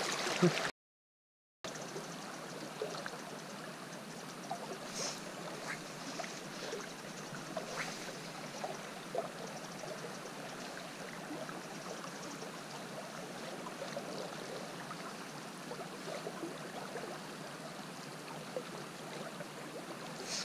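River water flowing steadily around the wading angler, an even rush with faint scattered ticks. The sound cuts out completely for about a second near the start.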